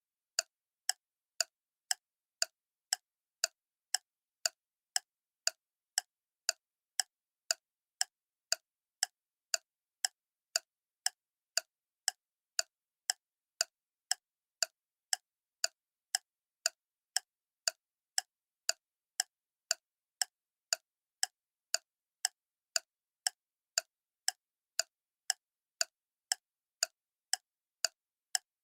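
Clock ticking steadily at about two ticks a second, each tick a short, sharp click.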